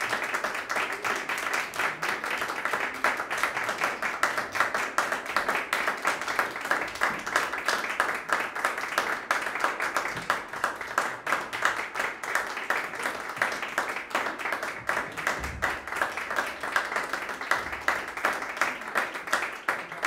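Audience applauding, a steady patter of hand claps.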